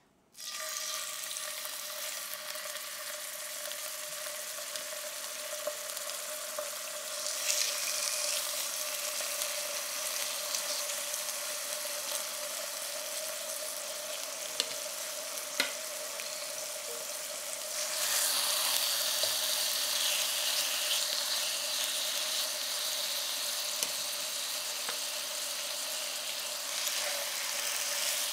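Chicken thigh fillets sizzling in hot olive oil in a cast-iron skillet. The sizzle starts suddenly as the first piece goes in and grows louder about seven seconds in and again near eighteen seconds as more pieces are added. A couple of light clicks come from the utensils.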